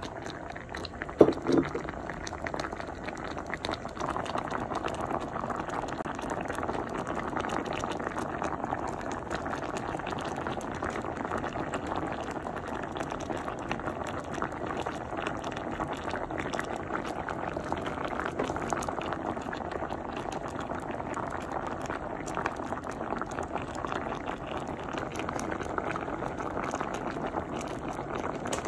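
Pot of sinigang soup boiling, the broth bubbling steadily, with two short knocks about a second and a half in.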